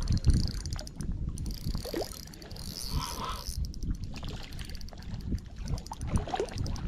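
A hooked carp splashing and thrashing at the surface in shallow water as it is played toward the bank.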